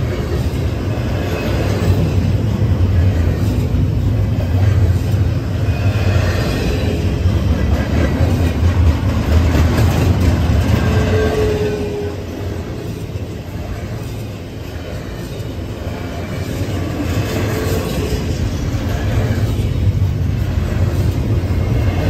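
Norfolk Southern double-stack intermodal freight train rolling past close by: a steady heavy rumble of wheels on rail with clickety-clack from the passing container cars, easing a little midway and then building again.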